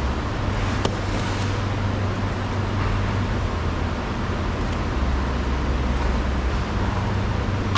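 Steady low rumble of road traffic, with a single sharp click about a second in.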